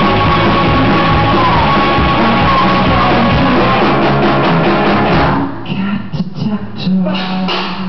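Loud rock music with vocals; about five seconds in it drops to a sparser, quieter passage.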